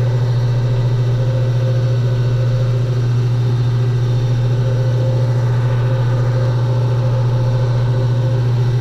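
Walk-in cooler's refrigeration unit running: a loud, steady low hum with fainter steady tones above it, unchanging throughout.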